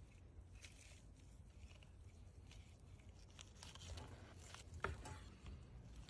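Faint crackle and scrape of a Damascus-steel chef's knife cutting through a seared meat crust and meeting a wooden cutting board. There are a few soft clicks, with one sharper tap about five seconds in.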